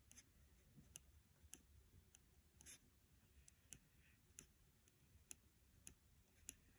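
Near silence with faint light clicks about twice a second and a few soft scratches: a pen writing on lined notebook paper.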